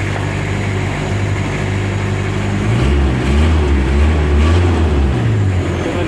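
A motor vehicle engine running steadily. About three seconds in it grows louder and rises in pitch for a couple of seconds, then settles back.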